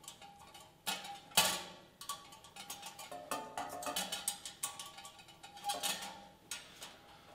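An Allen key clicking and knocking against the metal fittings of a chrome wire bakeware rack as its bolts are tightened, with the wire rack clinking. There is a sharper knock about a second and a half in.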